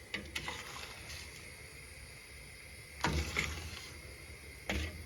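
Sugar going into a pot of boiled pine cones and being stirred in: a couple of light clicks, then two short rattling, pouring bursts about three and four and a half seconds in, over a low steady hum.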